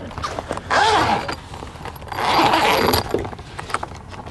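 Zipper on the fabric side window panel of a pop-up camper tent being unzipped in two long pulls, the first just under a second in and the second about two seconds in, with fabric rustling between them as the panel is opened.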